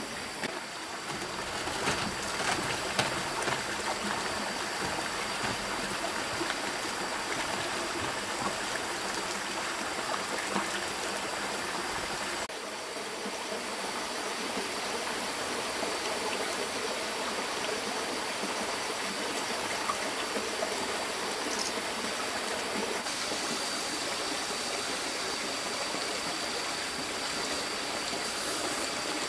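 Steady rushing of a forest stream: an even, constant wash of flowing water.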